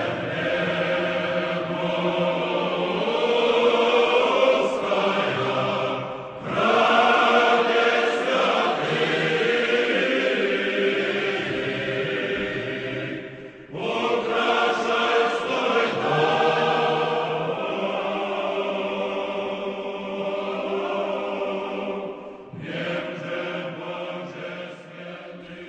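Church choir singing in long held phrases, with short breaks about six, fourteen and twenty-two seconds in.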